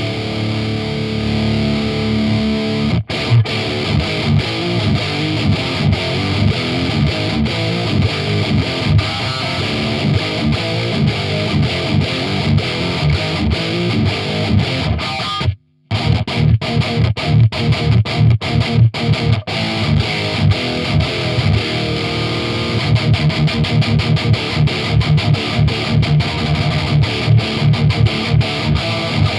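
Heavily distorted electric guitar playing chugging, palm-muted metal riffs through a Randall RG100HT amplifier, its tone shaped by an MXR 6-band EQ and Furman PQ4 for boosted mids, with a reversed Bill Lawrence bridge pickup, into a 2x12 cabinet with Demon speakers. The sound stops dead for a moment about 16 s in, cut clean by the noise gate, then the riffing resumes.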